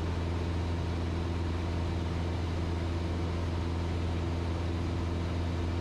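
Cessna 172's piston engine and propeller droning steadily in flight, an even low hum with no change in pitch.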